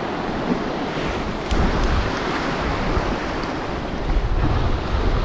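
Sea surf washing over a boulder shoreline, with strong gusting wind buffeting the microphone. The wind rumble comes in heavily about a second and a half in and again near the end.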